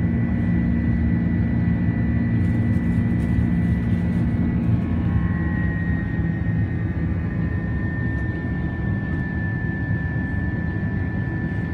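Airbus A330-300 jet engines and rushing air heard inside the passenger cabin: a steady roar with a high whine that drops a little in pitch about five seconds in.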